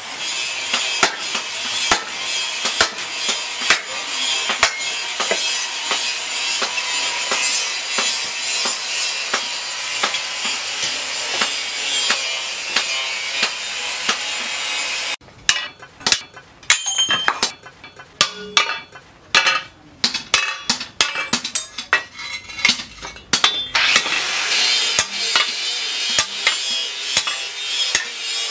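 Angle grinder cutting through a steel disc-plough blade, a steady high grinding rush with regular clicks, for about the first half. It stops abruptly and gives way to scattered sharp hammer blows on steel as the cut-out pieces are knocked loose. A steady rushing noise with further blows returns near the end.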